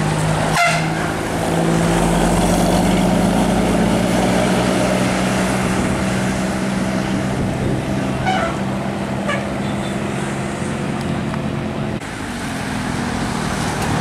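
Tour bus diesel engine pulling up a steep mountain road: a steady drone with traffic noise. Two brief higher sounds come about eight and nine seconds in, and the sound drops and changes about twelve seconds in.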